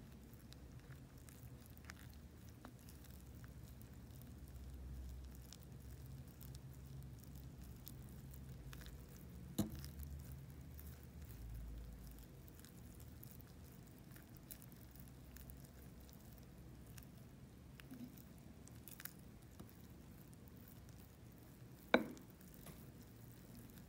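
A spoon stirring thick chocolate cake batter in a ceramic mug: faint, soft squishing and scraping, with two sharper taps, one about ten seconds in and one near the end.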